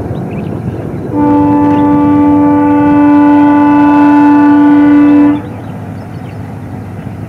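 WDG4 diesel locomotive's horn sounding one long blast of about four seconds, starting about a second in and cutting off sharply, over the steady low rumble of the running train.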